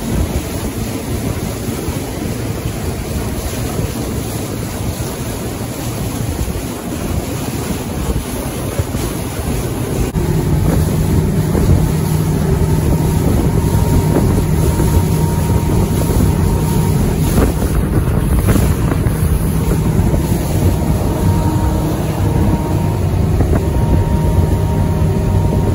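Motorboat under way at speed: engine running with water rushing past the hull and wind on the microphone. About ten seconds in it grows louder and a steady engine hum comes through.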